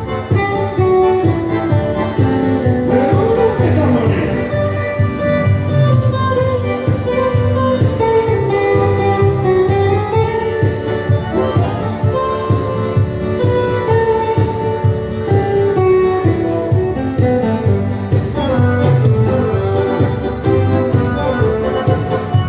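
Band music with a steady dance beat under a melody line, with a few sliding notes.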